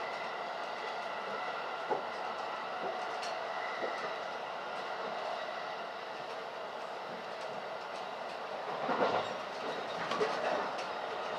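Electric commuter train running at speed, heard from inside the carriage: a steady rumble and rail noise with a few wheel clacks over rail joints, louder clusters of clacks about nine and ten seconds in.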